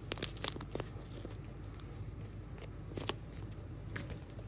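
Crinkling and tearing of a shiny pink blind bag as it is handled and opened. There is a quick run of crackles in the first second, then only a few scattered rustles and taps.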